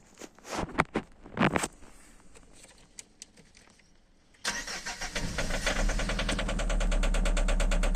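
A few knocks, then about four and a half seconds in a Citroen C5's starter motor begins cranking the engine, a steady rhythmic churning of several beats a second. The engine does not fire: it is a no-start that the owner is tracing to fuel pressure and the pressure regulator.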